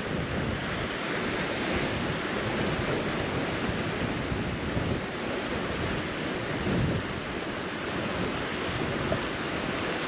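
Steady wind noise buffeting the microphone, mixed with the wash of sea surf, with no distinct events.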